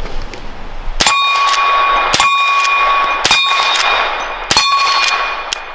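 Suppressed lever-action rifle fired four times in quick succession, about one shot a second, each shot followed by a steel target ringing for about a second.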